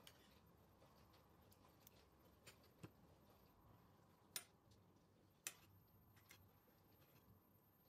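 Near silence, with a few faint, scattered sharp clicks or taps.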